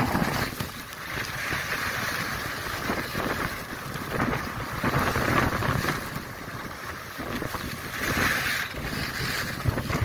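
Wind rushing over the microphone of a camera carried by a skier at speed, mixed with the hiss of skis carving on groomed snow. The rush swells and fades repeatedly through the turns.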